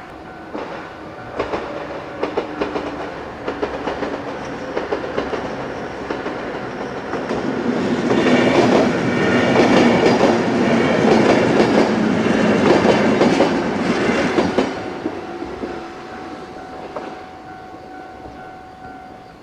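JR 103 series four-car electric train approaching and passing over a level crossing. Wheels clatter over the rail joints, growing louder to a peak about eight to fifteen seconds in, then fading away. A steady tone from the level-crossing warning bell rings under it at the start and again as the train recedes.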